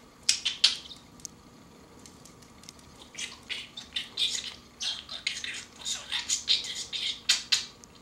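A budgerigar chattering and warbling in quick, high-pitched bursts, with a pause of about two seconds after the first second.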